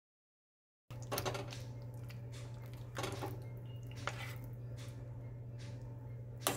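Silent for about the first second, then a steady low hum with a few soft squelching knocks as a utensil stirs thick, creamy shell pasta in its dish.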